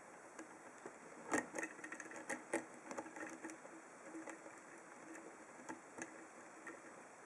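Small, irregular clicks and light metallic scraping from a deep-hook lock pick and tension bars working the pins inside a brass Corbin five-pin padlock. A cluster of sharper clicks comes in the first few seconds and another near the end.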